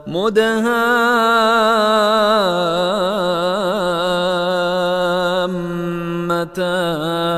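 A solo male voice chanting Quran recitation in a long held melodic line. It glides up at the start, drops into a wavering, ornamented passage about two and a half seconds in, then holds steady again, with a brief break near the end.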